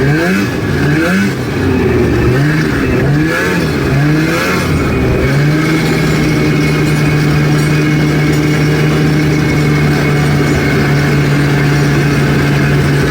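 Snowmobile engine, the rider's old 670, revving up and down in quick repeated swells, then holding a steady pitch from about five seconds in.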